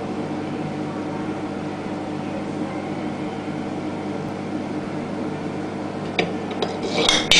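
A steady mechanical hum. Near the end, a kitten paws at a sink's metal pop-up drain plug, making a few sharp clicks and then a burst of metallic clinks and rattles against the basin.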